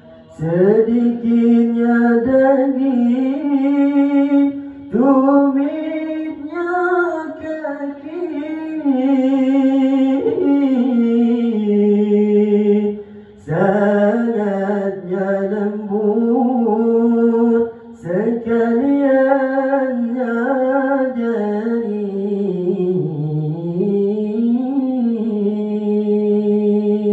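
A man's solo voice, amplified through a microphone, singing a mawlid praise song for the Prophet. It moves in long ornamented phrases with a wavering, sliding pitch and breaks off briefly for breath every few seconds.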